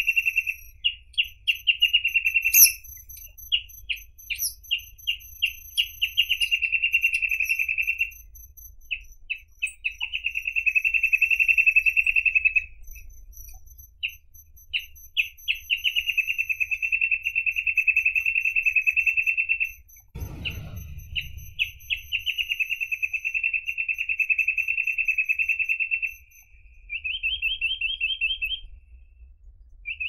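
Reed parrotbill singing: fast trills of repeated notes in phrases a few seconds long, some opening as separate notes that run together into a trill, with short pauses between phrases. A brief low rumble about two-thirds of the way through.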